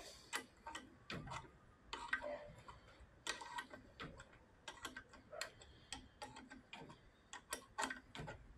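Irregular sharp metallic clicks and ticks, a couple to a few a second, as a tap used as a jacking screw is turned by hand in a push-threaded hole, forcing the brake casing off the axle.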